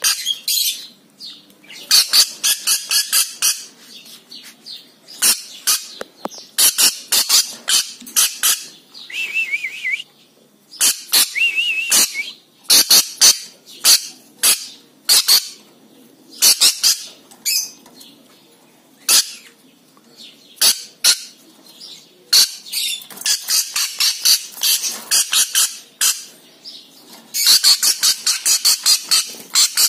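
Lorikeet screeching in rapid runs of shrill, harsh calls, bunched in bursts of a second or two with short pauses between, plus a wavering warbled note twice around the middle.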